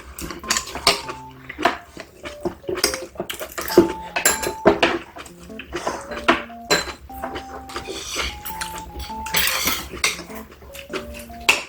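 Eating utensils repeatedly clicking and clinking against bowls and dishes during a meal of braised kimchi, with light background music playing a simple melody.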